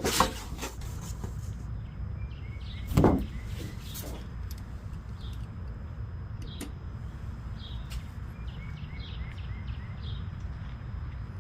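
Handling noises with small scattered clicks and ticks, and one louder low thump about three seconds in, over a steady low hum.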